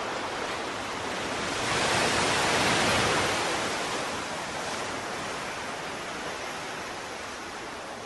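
Ocean surf: a steady rush of water that swells about two seconds in, as a wave washes in, then slowly eases off.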